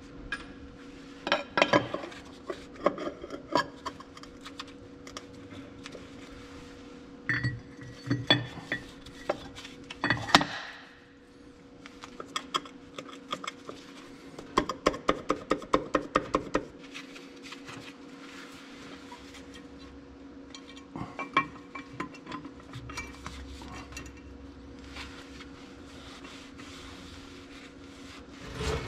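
Steel brake parts clinking and knocking as a brake disc and plates are handled and fitted into a tractor's dry-disc brake housing, with a quick run of even clicks about halfway through. A steady low hum runs underneath.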